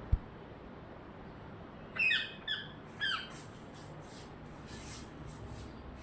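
A parrot gives three short squawks about half a second apart, each falling in pitch, followed by a run of faint high rasping sounds. A brief low thump sounds just at the start.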